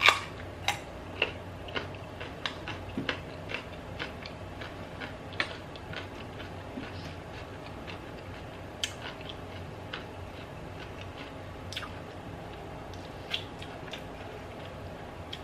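A person bites into a raw carrot with a sharp snap, then chews it with crisp, close crunches, about one or two a second at first and fewer after the middle.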